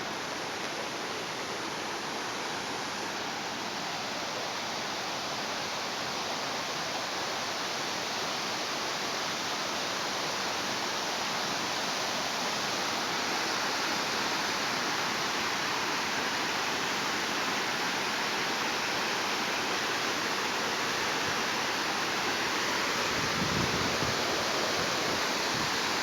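Waterfall: a steady rush of falling water that grows gradually louder, with a brief low rumble near the end.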